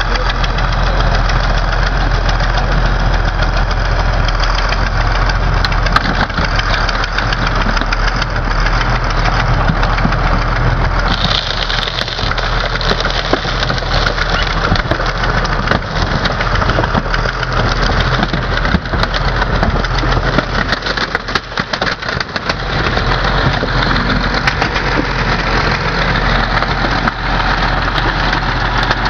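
John Deere 8430 four-wheel-drive tractor's turbocharged six-cylinder diesel running loudly as the tractor climbs onto a Chevy Beretta. From about eleven seconds in, the car's body and glass crunch and crack under the tyres.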